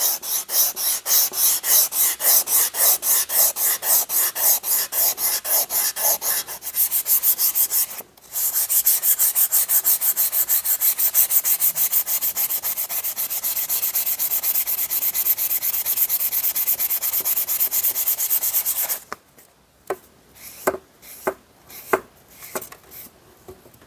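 Hand sanding a steel axe head with 400-grit abrasive on a blue block, wetted with Windex: rhythmic back-and-forth scrubbing, about three strokes a second at first, then faster and steadier after a short break about eight seconds in. The sanding stops about nineteen seconds in, leaving a few light knocks and rubs as a rag wipes the head.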